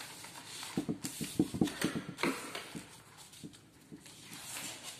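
A paper strip being folded and creased by hand: a quick run of rustles and scrapes as fingers press along the fold, busiest in the first half and fainter later.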